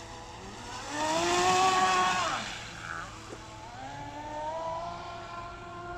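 Electric motor of a 6S LiPo-powered RC speedboat whining at speed. The pitch climbs to a loud peak about a second in and drops away past two seconds, then the whine rises again and holds steady.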